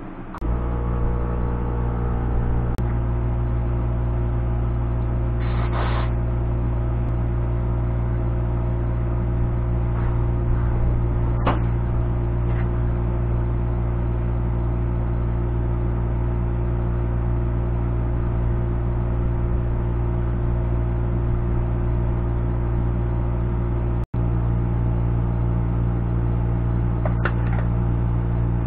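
A machine running steadily with a low, even hum that starts abruptly. A brief hiss about six seconds in and a few short clicks sound over it, and the hum drops out for an instant near the end.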